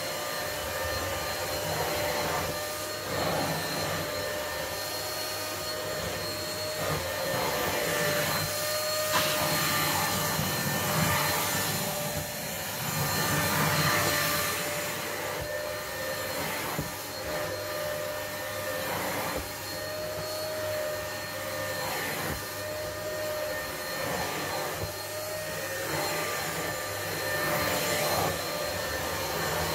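Corded stick vacuum cleaner running continuously over a shaggy carpet, a steady motor whine over a dense rush of suction, its loudness swelling and easing.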